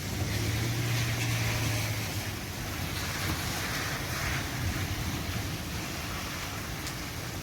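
Steady roaring of a severe thunderstorm overhead, sounding like strong wind though little wind reaches the ground, with a low rumble in the first two seconds. The observer wonders whether it may be continuous thunder.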